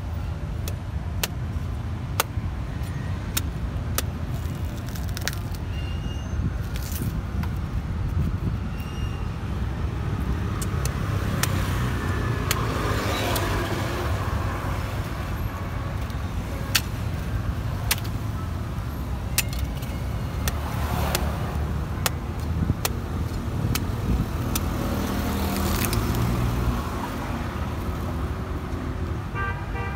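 A large knife cutting into the husk of toddy palm fruit, heard as scattered sharp clicks and chops. Under it runs a steady low rumble of street traffic that swells a few times.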